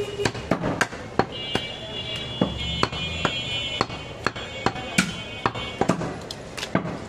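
Cleavers chopping goat meat on wooden chopping blocks: sharp, irregular knocks, about three a second. A high steady tone sounds over them for about three seconds in the middle.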